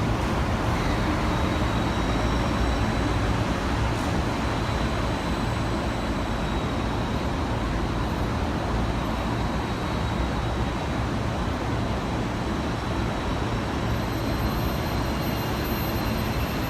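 Steady hum and running noise of a JR East 485-series train, with a faint high whine held throughout and no sudden sounds.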